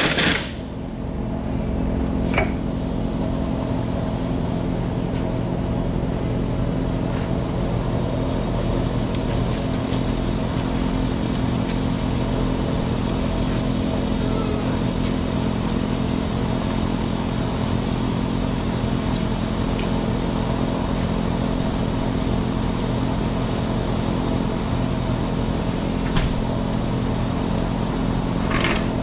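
An engine running steadily with an even hum, a loud hissing noise cutting off right at the start and a few faint clicks later on.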